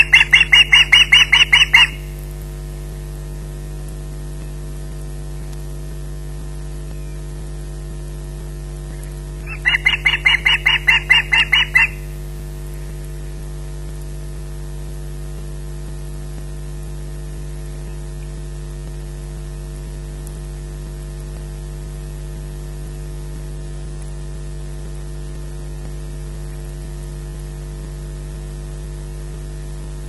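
Osprey calling on its nest: two series of rapid, high-pitched notes, about six a second, each lasting about two seconds, the first at the start and the second about ten seconds in. A steady mains hum runs underneath.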